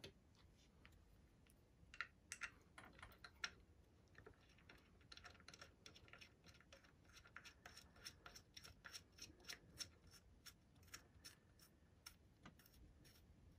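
Faint, irregular small metal clicks and taps as a hand-crank attachment is fitted to a Singer Series 15 sewing machine's hand wheel and its screw is worked by hand. The clicks come a few at a time at first, then more thickly from about five seconds in.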